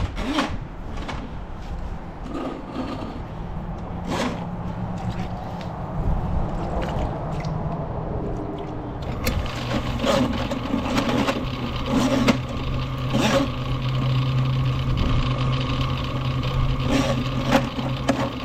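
Drain-cleaning machine running steadily with a constant hum and scraping as it works to push through a blockage in a sewer line. About nine seconds in it gets louder and noisier.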